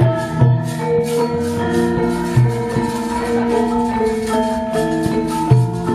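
Javanese gamelan playing: many ringing metallophone tones over a brisk clattering beat, with deep drum strokes now and then.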